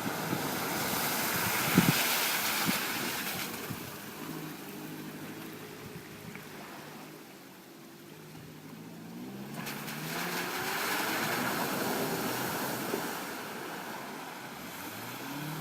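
Off-road vehicle's engine running, its pitch rising and falling as it is revved, under loud rushing noise that surges near the start and again about ten seconds in. A sharp knock comes about two seconds in.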